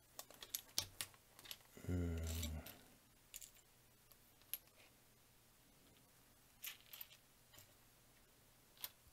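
Small plastic Sembo building bricks clicking as they are handled and pressed together: a quick run of clicks in the first second and a half, then single clicks every second or two.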